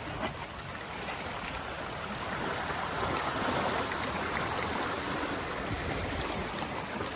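Small waves washing over sand and flat rocks at the water's edge: a steady rush of water.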